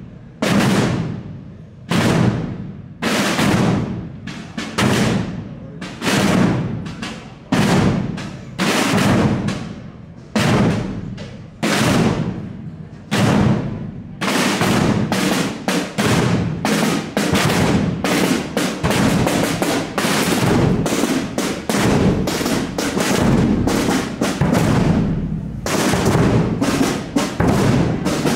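A corps of marching drums slung at the drummers' hips, beating a slow procession march: one heavy unison stroke about every second, then about halfway through changing to a denser, quicker pattern with rolls.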